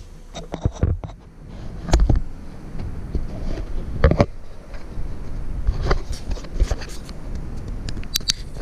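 An action camera being taken down and carried to a new spot, heard as handling noise. There is an irregular string of knocks, clicks and scrapes over low rumbling bumps against the microphone. The loudest knocks come about two and four seconds in.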